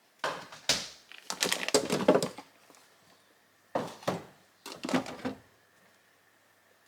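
A handful of short bursts of knocks, clatter and rustling from objects being handled, with quiet gaps between them.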